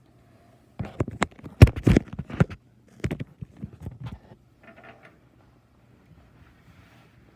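Knocking and clattering of a built plastic LEGO train set being handled and set down on a table, a dense run of knocks loudest about one and a half seconds in, then lighter knocks around three to four seconds in.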